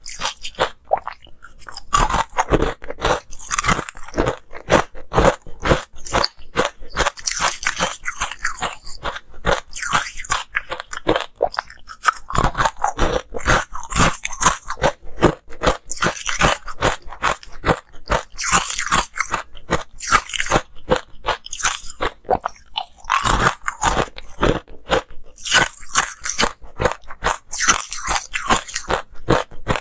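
Ice cubes dusted in green powder being bitten and chewed, a dense run of sharp, crunchy cracks one after another.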